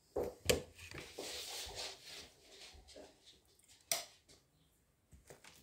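Quiet handling noise at a counter: a few soft knocks and a brief rustle in the first two seconds, then one sharper knock about four seconds in.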